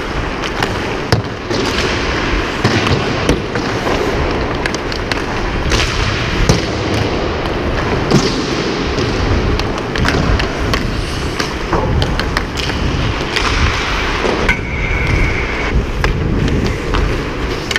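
Ice hockey skates scraping and carving on the ice, with many sharp clacks of a hockey stick on the puck and ice, heard close up from a helmet-mounted camera.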